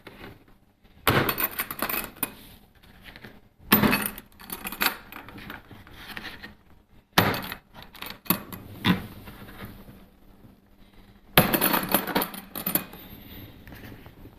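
Metal-bodied airsoft carbine and its hard case being handled: four bursts of sharp metallic clicks, clacks and rattles, about a second in, near four seconds, near seven seconds and past eleven seconds.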